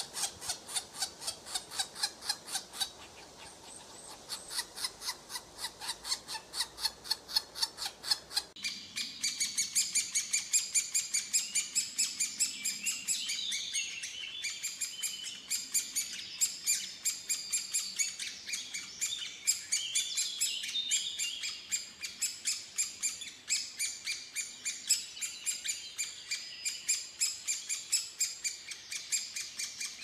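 Woodpecker nestlings begging from the nest hole: fast, insistent high calls repeated several times a second. About eight seconds in, the calling turns louder and busier.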